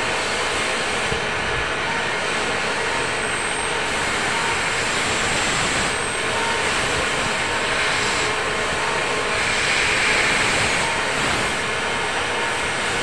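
Steady din of running machinery on a machine-shop floor, with a compressed-air blow gun hissing louder for a moment about ten seconds in.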